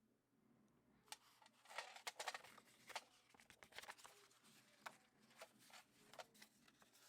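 Faint, irregular clicks and light rattling from an antique hand-crank sewing machine being handled, busiest about two to three seconds in.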